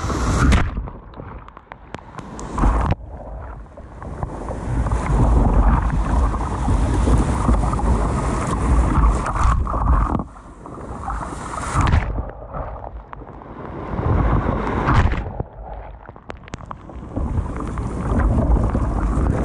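Sea water rushing and splashing around a sit-on-top kayak's bow in breaking surf, in hissing surges that swell and die away several times, the longest lasting about eight seconds, over a low rumble of wind buffeting the microphone.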